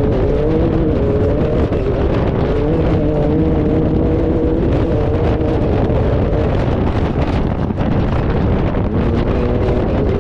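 Off-road race car's engine running hard at speed, its pitch rising and falling a little, with wind rushing over the onboard microphone.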